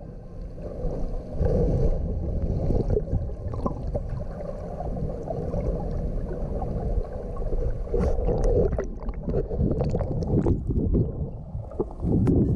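Muffled, low rumble of moving water heard underwater in a swimming pool, with bubbling and gurgling as a swimmer moves and breathes out under water. It grows louder and splashier near the end as the swimmer nears the surface.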